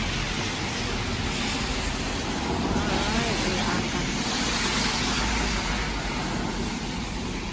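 Steady rain hissing, with the road noise of traffic on wet pavement swelling a little in the middle.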